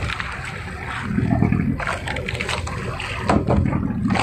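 Wind buffeting the microphone and water rushing along the hull and outrigger of a jukung outrigger canoe under way, swelling twice.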